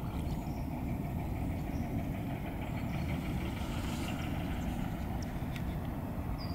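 Steady low outdoor rumble, with a few faint, short, high bird chirps and light clicks.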